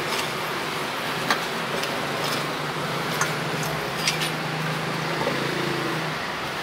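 Meat cleaver chopping roasted pork on a wooden chopping block: a few sharp, separate chops about a second apart, over steady street traffic noise, with an engine hum for a couple of seconds after the middle.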